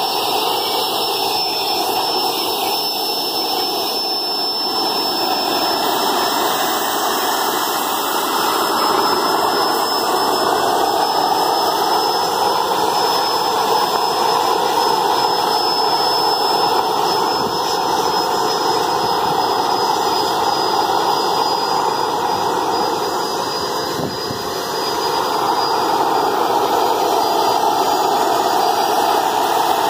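Homemade turbocharger jet engine, built from a Schwitzer S300 truck turbocharger, running steadily: a loud rushing roar with a high turbine whistle that drifts slightly lower, briefly softer about 24 seconds in.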